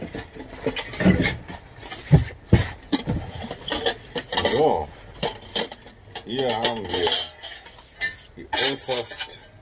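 Metal clinking and knocking as a metal double lunch tin used as a cooking pot is handled and opened: a string of sharp clinks and knocks.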